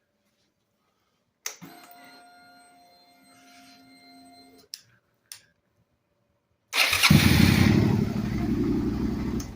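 Suzuki SV650 V-twin being started on its cleaned and polished starter motor: a click and a quieter steady whine for about three seconds, then, near the end, a loud pulsing run of the starter cranking and the engine starting, which cuts off suddenly.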